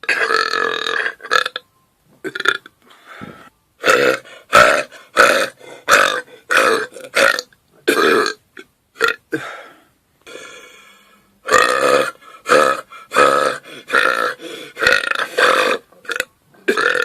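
A man belching on command over and over: one long belch, then two runs of short belches in quick succession, about one or two a second, with a brief pause between the runs.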